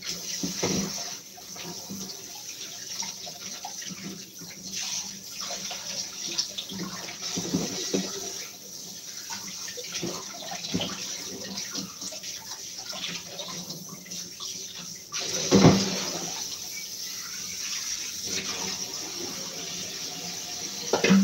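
Kitchen tap running into a stainless-steel sink while fish are rinsed and handled by hand, with splashing and small clatters. There is one loud knock about three-quarters of the way through.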